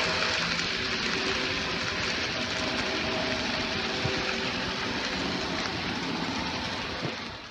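N-scale model train running past: a steady rushing rattle of small wheels on the track with a faint motor hum, fading out near the end.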